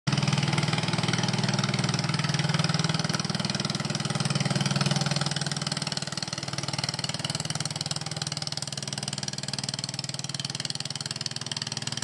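An engine running steadily with a fast, even pulse, a little quieter from about five seconds in.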